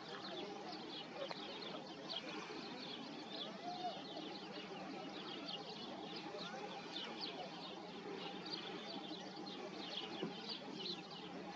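Many small birds chirping continuously, with short, quick calls throughout, over a steady low outdoor background noise.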